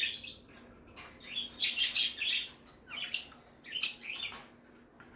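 Budgerigar chirping in short, high-pitched bursts: one call at the start, a longer run of chirps about a second and a half in, then two more single calls.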